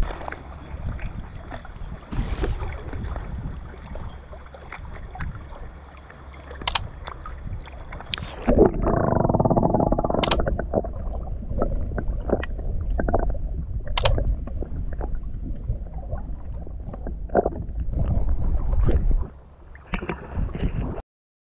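Muffled water sloshing and gurgling, as heard by a camera in the sea, with low rumbling and a few sharp clicks.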